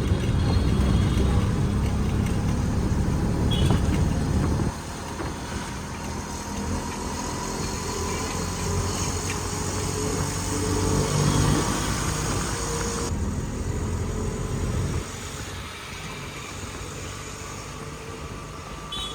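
Motor vehicle running with road traffic noise: a heavy low rumble that drops abruptly about five seconds in, then lighter engine and traffic noise that changes suddenly again about 13 and 15 seconds in.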